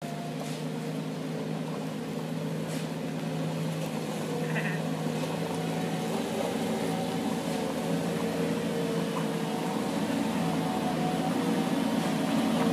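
Diesel engine of a Schäffer 2445 Nordic HD 4wd compact wheel loader running steadily as the loader drives up a sandy track, growing louder as it comes closer.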